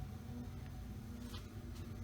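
Mistral Mistralaire ceiling fan, made by TAT, running at a medium speed with a steady hum, the characteristic hum of its variable speed control. There are two faint ticks in the second half.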